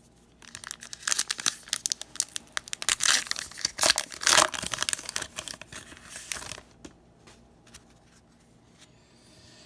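A baseball card pack's wrapper being torn open and crinkled, a few seconds of crackling tearing that is loudest midway, followed by a few light clicks and rustles as the cards are handled.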